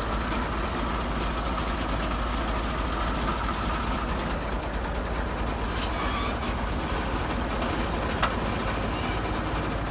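IMT 542 tractor's diesel engine running steadily.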